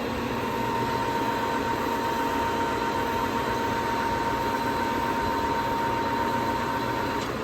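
Kingston HR3000 engine lathe running steadily, a machine hum with a thin steady whine that cuts off shortly before the end.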